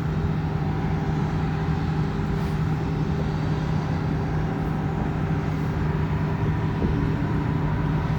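A motor vehicle running with a steady hum, amid street noise.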